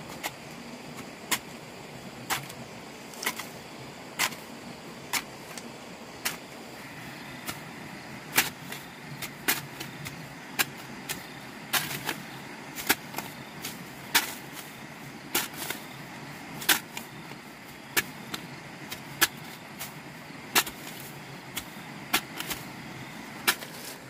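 A series of sharp knocks, roughly one a second and sometimes two close together, over a steady background hiss.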